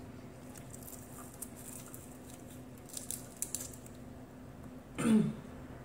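Fingers tearing and picking flesh off a grilled milkfish, heard as faint soft crackles and small clicks over a steady low hum. About five seconds in comes a short voiced sound falling in pitch.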